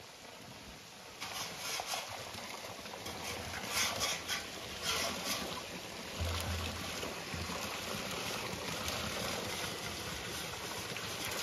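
Spring water pouring from a spout in a stone wall and splashing onto the stones below, a steady rushing splash that grows louder about a second in.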